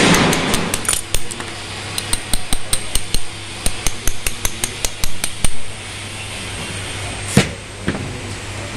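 A glass cutter's metal ball end tapping a small piece of scored stained glass in quick, irregular light taps, the usual way to run a score before the piece is broken off. It opens with a short louder rasp, and a single louder knock comes about seven seconds in.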